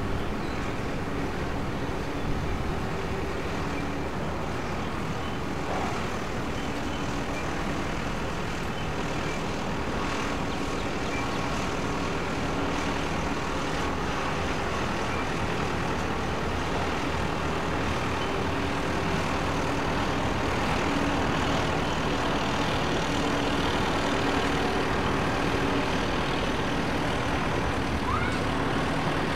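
Ilyushin Il-96's four PS-90A turbofan engines running at taxi power: a steady jet hum that grows slightly louder in the second half.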